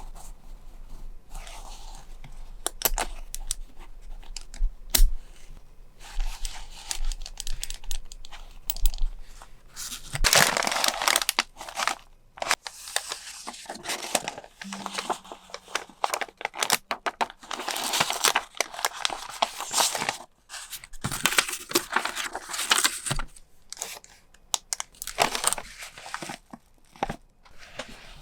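Packaging being unwrapped by hand: repeated tearing and crinkling, broken by many light taps and clicks. The tearing is heaviest in stretches about ten, eighteen and twenty-two seconds in.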